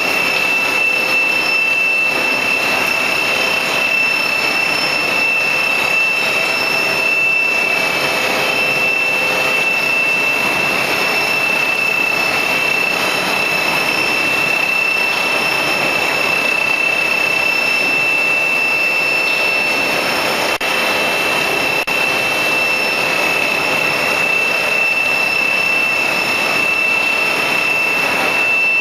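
Plastic sheet-making machine running steadily: an even, loud mechanical noise with a constant high-pitched whine over it.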